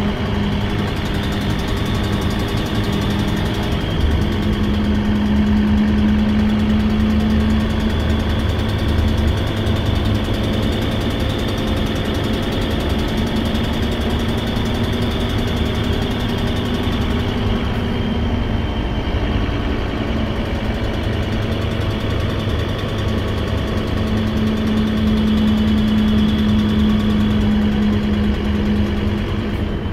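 Scania K270UB city bus's diesel engine, heard inside the passenger cabin, running steadily with a loud exhaust that sounds like a Lanz Bulldog tractor. The owner suspects a leaking exhaust manifold or bad valves.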